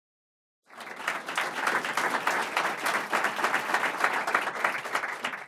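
Audience applauding: a dense patter of clapping that starts under a second in and cuts off abruptly at the end.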